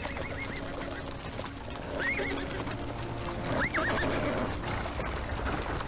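Horses whinnying, three wavering calls: one at the start, one about two seconds in and one near four seconds, over the clip-clop of hooves.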